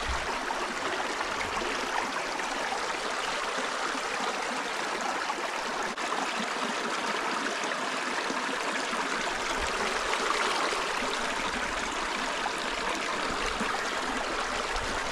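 A creek running steadily, the water rushing and trickling without a break.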